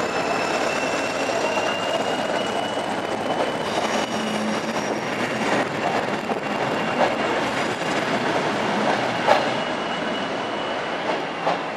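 Northern Ireland Railways diesel multiple unit rolling through a curve, its wheels giving a steady high-pitched squeal over the rumble of the train. A few sharp clicks come in the second half as wheels cross rail joints.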